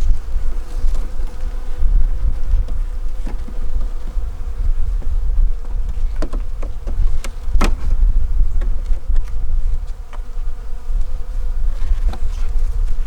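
Honeybees buzzing at an opened hive, a steady hum, over a loud low rumble. A few sharp knocks, the loudest a little past the middle.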